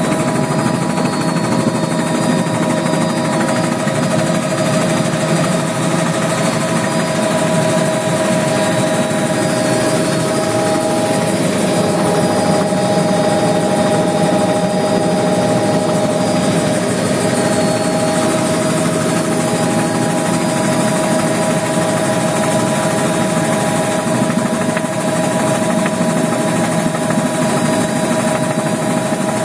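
Agricultural spray helicopter's engine and rotor running steadily in flight, heard from inside the cabin: a loud, even drone with a steady whine on top.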